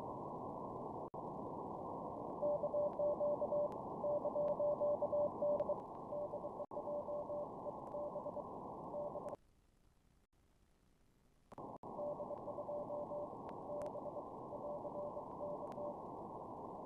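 Flex-5000 software-defined radio's receiver audio in CW mode on the 15-metre band: a hiss of band noise through the narrow CW filter, with a Morse code signal as a single steady tone keyed on and off in two stretches. The audio drops to near silence for about two seconds midway.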